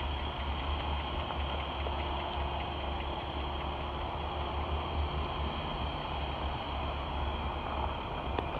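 2016 Infiniti QX80's 5.6-litre V8 idling steadily, a constant low hum.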